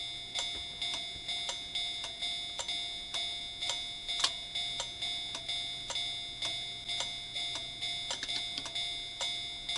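Warning bell of a home-built O-gauge model railroad crossing in the Japanese class 3 style, ringing evenly at about two strikes a second, each strike ringing on into the next.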